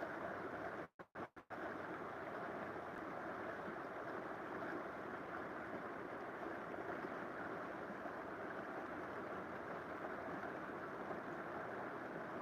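River water flowing in a steady rush, cut by a few very brief drop-outs about a second in.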